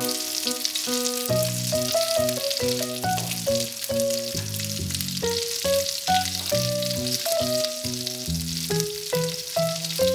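Breadcrumbed Scotch eggs shallow-frying in oil in a pan, a steady sizzle, under background music.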